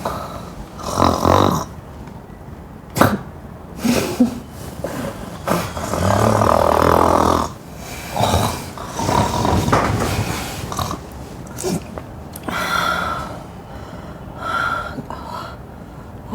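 A person snoring loudly in irregular bouts of snores and snorts, the longest lasting about a second and a half.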